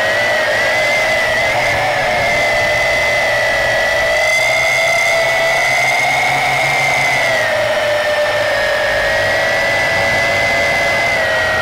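Yizhan Tarantula X6 quadcopter's motors and propellers whining steadily, heard from the camera on board. The pitch rises a little a couple of seconds in and drops back at about seven and a half seconds as the throttle changes.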